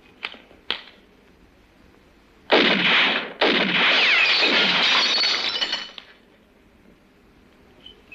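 Glass bottles smashing in a film sound track: a few small clinks, then two loud crashes of shattering glass, the second lasting a couple of seconds.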